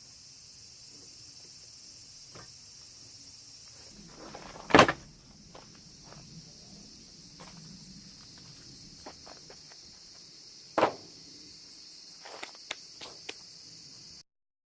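Scattered knocks and clicks over a steady high hiss: one sharp knock about five seconds in is the loudest, another comes near eleven seconds, and a few small ticks follow before the sound cuts off abruptly just before the end.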